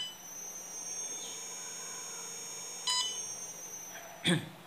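Short electronic beep as the START button on a Siemens KTP900 Basic touch panel is pressed, followed by a steady high-pitched whine for about four seconds, with a second short beep about three seconds in and a single tap near the end.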